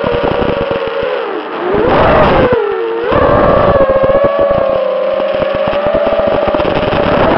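FPV racing quadcopter's electric motors and propellers whining, recorded on board. The pitch dips about a second in, surges with throttle about two seconds in, then holds fairly steady.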